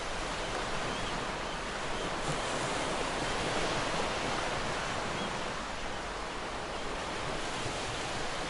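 Steady rushing sound of open-sea waves, with no distinct breakers.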